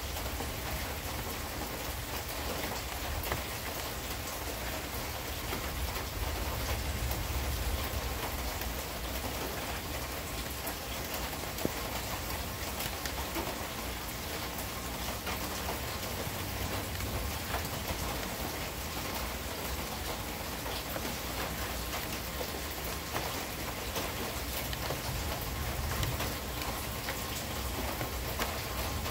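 Steady rain falling during a thunderstorm, a constant hiss full of small drop ticks, with a low rumble swelling and fading underneath.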